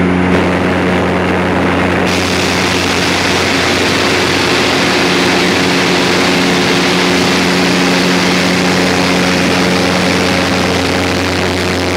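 Steady in-flight cabin noise of a small propeller airliner: a low engine and propeller hum with several steady tones above it, under a loud rush of airflow. The rushing grows brighter about two seconds in.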